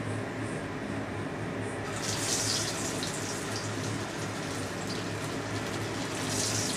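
Hot oil in a kadai sizzling as a soft soybean cutlet is laid in to shallow-fry. The sizzle swells about two seconds in, and swells again near the end as a second cutlet goes into the oil.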